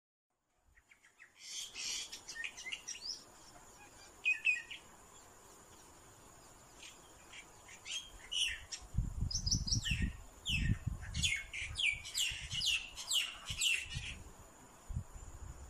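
Small birds chirping: quick runs of short, high, falling chirps in bursts, busiest in the second half. Low dull thumps come in the middle and once near the end, over a faint steady high-pitched tone.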